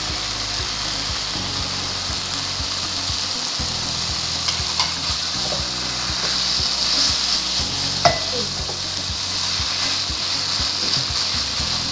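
Shredded chicken filling sizzling in a hot wok while a wooden spatula stirs and tosses it, with a few sharp knocks of the spatula against the pan about halfway through and again a little later.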